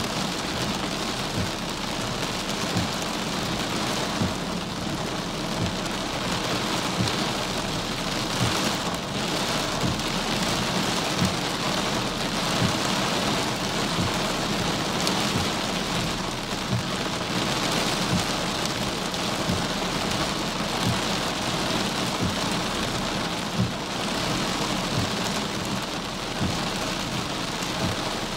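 Heavy rain hitting a car's windshield and roof, heard from inside: a steady hiss with a scatter of small low knocks from drops striking the body.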